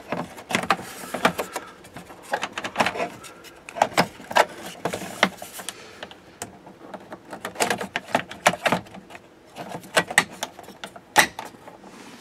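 Plastic dashboard switch inserts being handled and pushed into place in the dash bezel: a string of sharp plastic clicks, snaps and knocks at irregular intervals.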